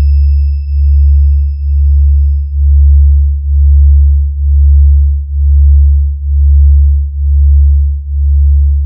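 Deep electronic sub-bass tone pulsing about once a second, a speaker-check bass test for a DJ sound system. A thin high electronic tone fades out over the first few seconds.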